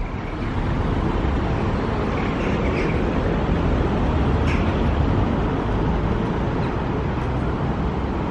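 Street ambience: passing car traffic and a steady low rumble.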